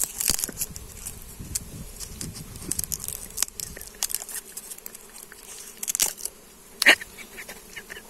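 Dwarf honey bees buzzing around their comb, with scattered clicks and rustles of pruning shears and bamboo twigs being handled. A few louder sharp clicks, the loudest about seven seconds in.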